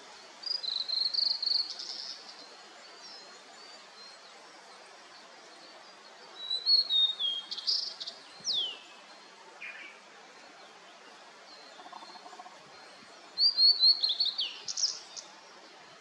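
Blue-and-white flycatcher singing three song phrases of quick, high, slurred whistles several seconds apart, each ending in a rapid burst of notes. A steady soft hiss of background noise runs under the song.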